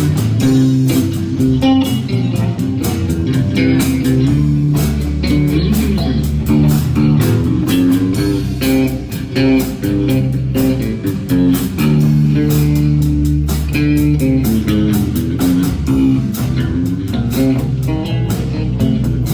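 Live band playing an instrumental passage: electric guitar and electric bass guitar over a drum kit keeping a steady beat.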